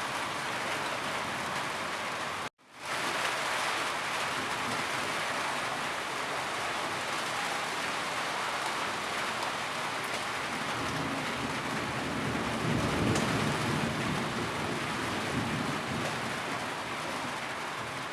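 Steady rain, an even dense hiss of falling drops. The sound cuts out for a split second about two and a half seconds in, and a low rumble swells beneath the rain a little past the middle.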